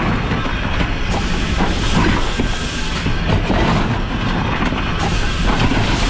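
Coal-burning steam locomotive under way, heard from the cab: a steady rumble and clatter of the running gear on the rails, with scattered knocks and rattles.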